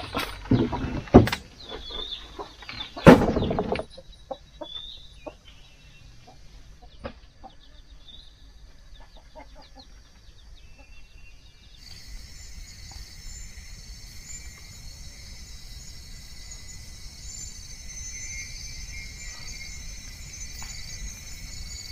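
Chickens clucking, with a few loud knocks and a clatter in the first four seconds. About halfway through, a steady high-pitched chorus of night insects starts.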